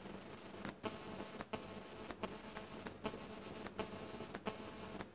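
Faint steady hiss of room tone, broken by brief regular dropouts about every three-quarters of a second.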